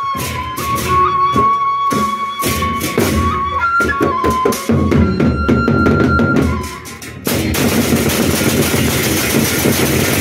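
Gendang beleq ensemble playing: large double-headed drums and crash cymbals beating under a wind instrument that holds a high melody. About seven seconds in, the music dips briefly, then the cymbals take over in a dense, continuous clatter.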